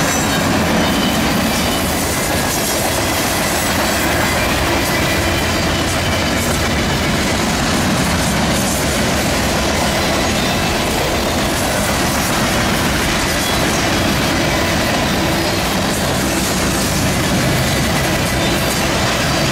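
Freight train cars rolling past: a steady rumble and clatter of steel wheels on the rails, with a faint high wheel squeal running under it.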